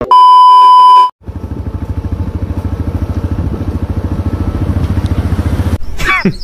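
A loud one-tone test beep with a glitch effect for about a second, then a motorcycle engine running with a steady, even low putter. Near the end it is cut off by a brief sweeping voice sound.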